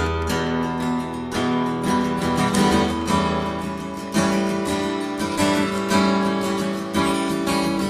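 Background music: strummed acoustic guitar playing without singing.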